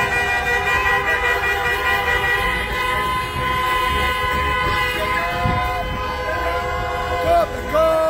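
Many car horns honking together in a road tunnel: several horns held down steadily at different pitches, with short separate toots from other cars in the last few seconds.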